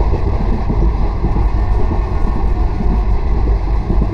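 Passenger train running at speed, heard from an open coach doorway: a steady, loud rumble of wheels on rail.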